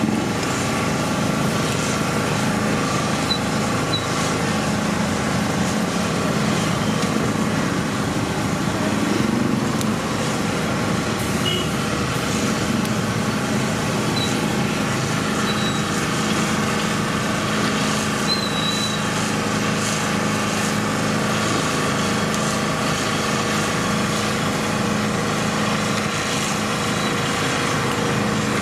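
Steady hum of an engine running nearby, over general road-traffic noise, holding constant in pitch and level.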